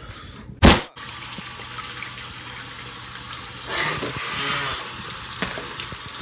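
A short loud knock, then a kitchen tap running steadily.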